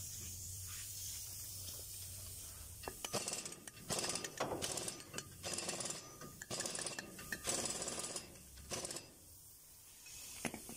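A small hammer tapping a metal ABS tone ring down onto an Isuzu D-Max front wheel hub, in about seven short runs of rapid light taps, beginning about three seconds in. A steady low hum runs under the start.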